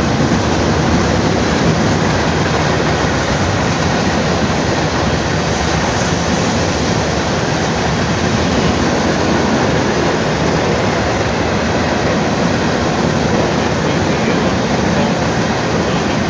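CSX freight train cars rolling past at speed: a steady, loud rush of steel wheels on rail.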